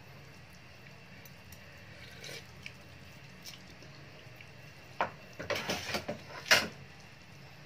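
Chicken broth being tasted from a spoon for seasoning: a few short sips and clicks about five to six and a half seconds in, the last one the sharpest, over a faint steady hiss.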